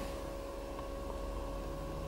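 Steady low hum and hiss of a quiet car cabin, with a faint thin whine held throughout and no distinct event.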